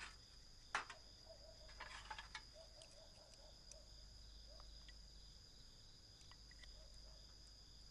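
Near silence with a faint, steady chorus of crickets. A few soft clinks of chopsticks against rice bowls are heard, the loudest about a second in.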